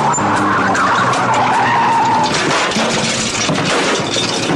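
Car tyres squealing in a long skid, the squeal wavering and sliding down in pitch, ending about two seconds in. A rough scraping noise with scattered knocks follows as the car slides on.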